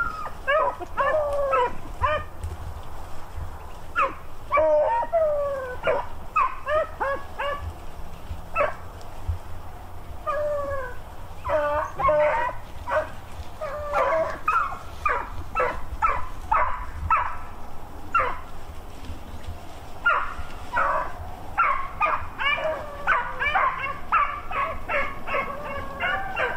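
Several beagles baying and yelping in full cry on a cottontail rabbit's scent: many short, pitch-bending calls, overlapping and repeated without let-up.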